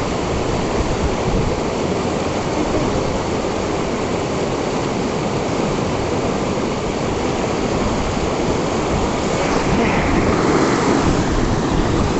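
Steady rush of river water flowing fast, getting a little louder near the end.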